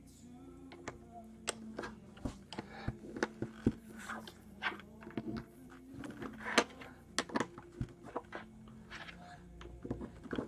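LEGO bricks clicking and tapping as small plates are handled and pressed together on a wooden tabletop, in irregular sharp clicks, the loudest about six and a half seconds in.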